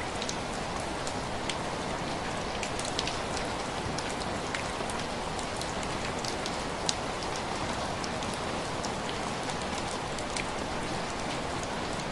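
Steady rain falling, an even hiss with many sharp drip ticks of single drops scattered through it, one louder near the middle.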